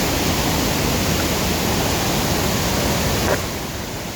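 Waterfall rushing close by, a loud, steady wash of falling water. About three seconds in a brief tap is heard and the rush turns somewhat quieter.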